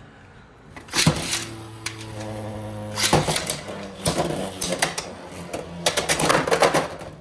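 Beyblade X spinning tops launched into a plastic stadium with a sharp snap about a second in, spinning with a steady whir, then a second hard hit near three seconds and rapid clattering and clashing as the two tops collide.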